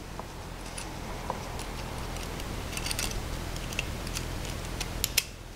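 Light metallic clicks and handling noise as a thin steel piston ring is fitted into the jaws of piston ring expander pliers, with two sharper clicks near the end.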